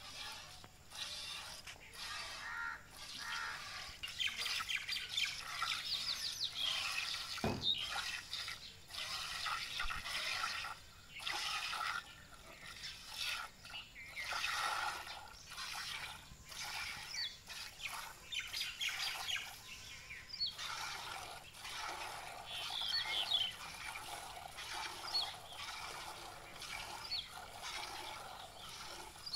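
Hand-milking: jets of milk squirting into a steel pail in a quick, steady rhythm. Birds chirp now and then, mostly in the second half.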